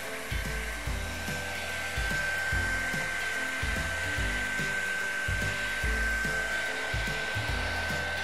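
Philips handheld hair dryer running steadily on hot, a continuous blowing hiss with a steady high whine, its hot air warming seal grease into leather motorcycle boots.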